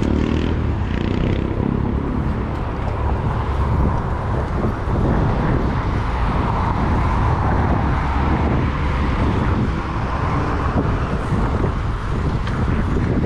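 Steady street traffic noise mixed with a low, fluttering wind rumble on the microphone of a camera riding along on a moving bicycle, with no distinct single event standing out.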